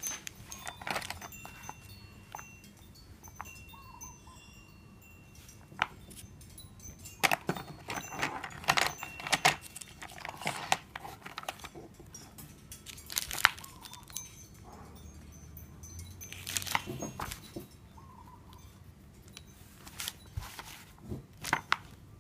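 Pencils and paper being handled and drawn on: scattered clicks, taps and short scratchy rustles, coming in irregular clusters.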